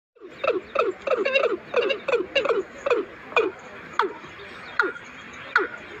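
Watercock calling: a long series of low, downward-sliding notes, about three a second at first, then slowing to roughly one a second.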